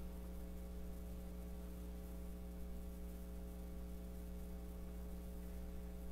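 Steady electrical mains hum with a stack of buzzing overtones, unchanging throughout, over faint hiss.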